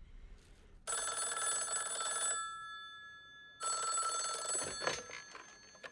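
Black rotary desk telephone's bell ringing twice, each ring about a second and a half long. The second ring is cut off about five seconds in by a sharp clack.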